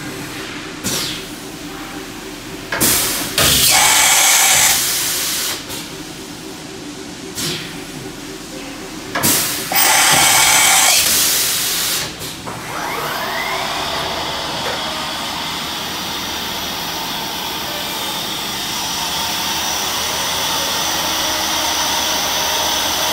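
Yama Seiki BM-850 vertical machining center working its automatic tool changer: knocks of the tool-change arm and two loud hissing air blasts of about two seconds each as tools are released from the spindle. About halfway through the machine settles into a steady running noise with a faint rising whine.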